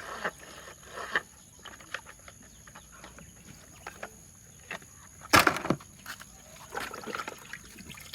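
Toy trucks being washed in water: scattered small splashes and knocks, with one louder splash about five seconds in.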